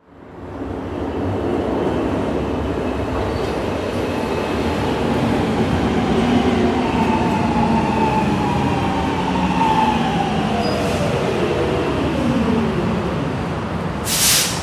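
Metro train pulling into a station. A steady rumble of wheels on rail builds up, then a whine falls in pitch as the train slows, and a short hiss comes near the end.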